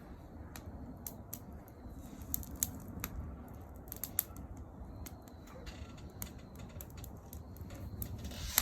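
Wood fire crackling, with irregular sharp pops and snaps from the burning wood over a low steady noise.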